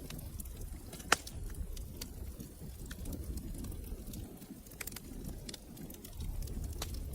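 Wood fire crackling in a fireplace: a low steady flame noise with scattered sharp pops and snaps, one loud pop about a second in.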